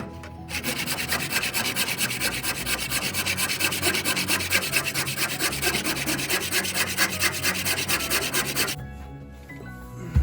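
Fast, even rubbing strokes of an abrasive on wood, shaping a new pitch pine board; the strokes stop near the end.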